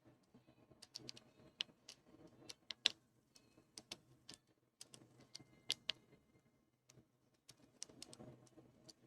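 Snake rake being worked in the keyway of a Master Lock No. 3 laminated pin-tumbler padlock: faint, irregular metallic clicks of the pins being raked, several a second, with a couple of brief pauses.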